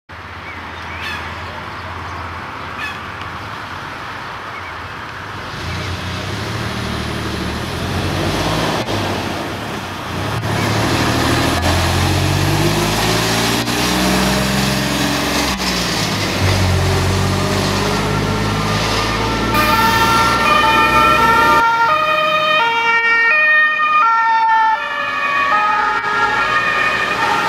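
Iveco Magirus fire engine's diesel engine running, then its two-tone Martinshorn siren alternating between two low notes and dropping in pitch as the truck passes. About two-thirds of the way through, a Volkswagen Passat emergency car's higher-pitched two-tone siren takes over.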